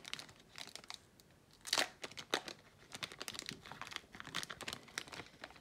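Crinkling of a Pokémon booster pack's foil wrapper being handled, in short crackles with two louder ones about two seconds in.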